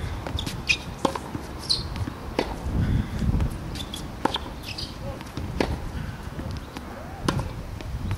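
Tennis ball struck by a racket and bouncing on a hard court: sharp pops every second or two, with the player's footsteps between them.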